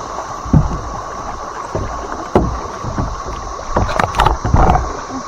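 Kayak being paddled through shallow water: paddle strokes and splashes with a few sharp knocks, the busiest cluster about four seconds in.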